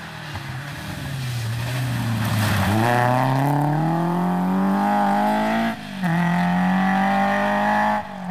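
A rally car engine accelerating hard, getting louder as it comes closer, its pitch climbing steadily. The note breaks off briefly twice for upshifts, about two-thirds of the way in and again near the end, then pulls on.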